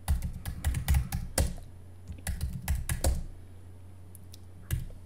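Typing on a computer keyboard: quick runs of key clicks through the first three seconds, then a few single keystrokes near the end, over a low steady hum.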